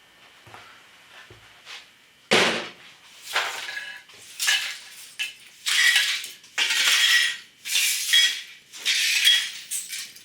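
Heap of smashed computer parts being handled and shifted: metal and plastic fragments clinking and rattling together in repeated bursts, about one a second, starting a couple of seconds in, some with a short metallic ring.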